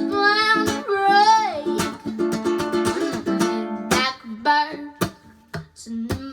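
A young girl singing with wide vibrato over a strummed ukulele. She holds long wavering notes for the first two seconds, and the chords are strummed hard about two, four and five seconds in.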